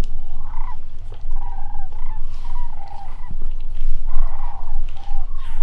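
Sandhill cranes calling: repeated rolling calls from several birds, overlapping one another, over a steady low rumble.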